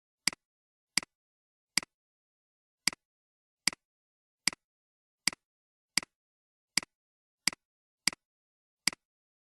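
Computer mouse clicking, twelve separate clicks at an uneven pace of about one a second, each a quick press followed by a softer release.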